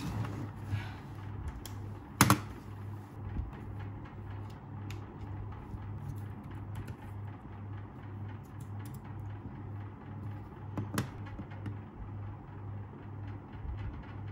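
Typing on a Logitech K380 keyboard: a quick run of soft key clicks, with a louder knock about two seconds in and another near eleven seconds, over a steady low hum.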